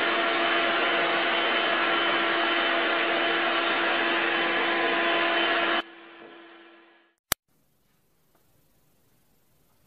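Cordless stick vacuum cleaner running steadily with a constant hum as its nozzle is passed over a lying cat's fur. About six seconds in the sound drops off sharply and fades away, followed by a single click and then near silence.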